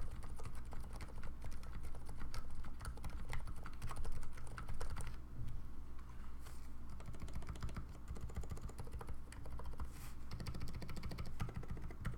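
Typing on a TGR Jane custom mechanical keyboard with 78 g Cherry MX Silent switches in Zealios housings, lubed with Krytox 205/105: rapid, continuous keystrokes.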